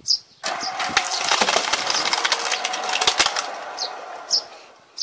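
A homemade screw-cone log splitter's threaded cone bores into a log, and the wood cracks and splinters loudly as the log splits apart. The crackling starts about half a second in and fades away near the end.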